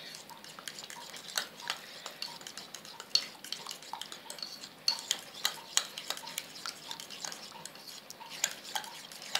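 A spoon stirring thick, wet raita (yogurt mixed with puréed bathua greens) in a glass bowl, with irregular clicks and taps of the spoon against the glass about once or twice a second.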